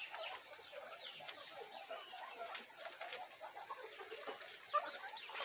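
Faint scattered chirps, squeaks and clucks with rustling and small clicks, from a pen of guinea pigs feeding on cut grass and grain, with hens nearby.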